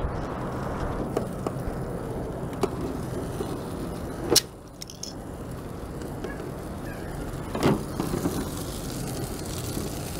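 A steady low hum and rumble in the background, broken by a few light clicks, one sharp clack about four seconds in and a duller knock near eight seconds: metal tongs working against the thin aluminium foil pans of the charcoal grill.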